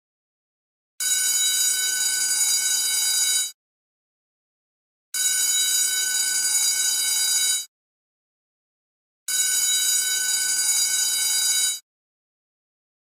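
School bell ringing in three bursts of about two and a half seconds each, with dead silence between them, repeating every four seconds or so.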